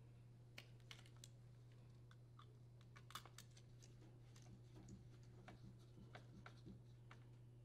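Near silence, with faint, irregular small clicks of a screwdriver rethreading the screw that secures the dishwasher's sheet-metal terminal box cover, over a steady low hum.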